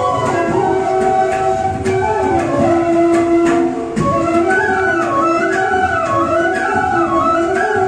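Flute playing an ornamented melody of an Assamese folk song over a held lower accompanying tone, with occasional percussive hits.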